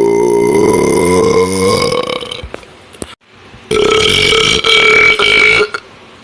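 A person burping on command: two long, loud, pitched belches. The first is already under way and fades out about two seconds in; the second starts a little before four seconds in and stops shortly before the end.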